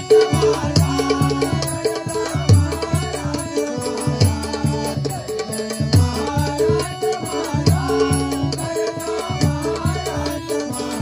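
Instrumental interlude of a Marathi bhajan ensemble: a hand drum plays a fast, driving rhythm with deep bass strokes that bend in pitch. Harmonium holds sustained notes underneath, and small hand cymbals keep time with rapid metallic strokes.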